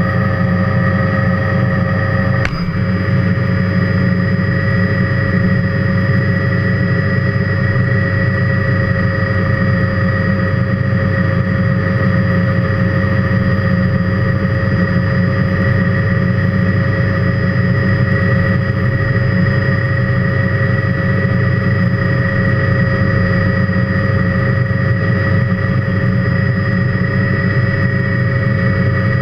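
Helicopter's turbine engine and rotor heard from inside the cockpit: a steady low rumble with a high, even turbine whine. There is a brief click about two and a half seconds in.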